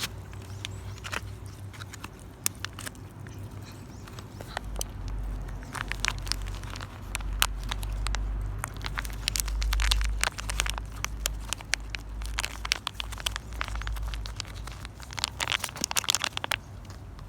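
A cat eating chicken-breast treats up close: a run of small sharp clicks and crunches from chewing, thickest about six to eight seconds in and again near the end, with a low rumble under the middle part.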